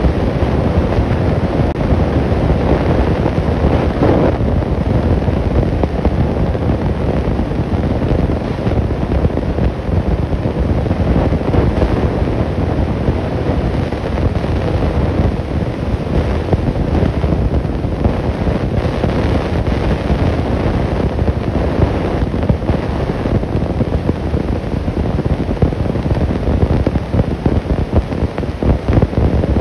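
Steady wind noise buffeting the phone's microphone, a continuous loud low rumble with no calls or other distinct sounds standing out.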